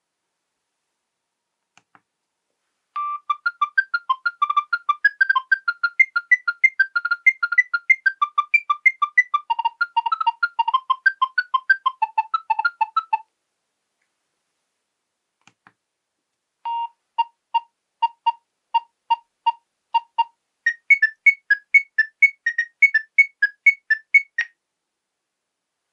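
Nokia 7210 polyphonic ringtones playing: a busy melody of quick, short electronic notes for about ten seconds, a short pause with faint clicks, then a second tune that opens with evenly repeated single notes and moves into a quicker, higher run.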